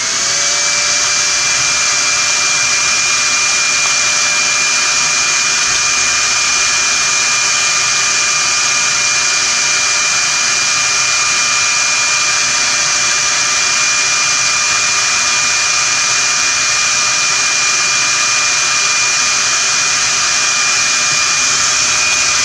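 InfinitiPRO hair dryer running on its low setting: a steady rush of air with a steady high whine, switched on at the start with its pitch rising briefly as the motor spins up.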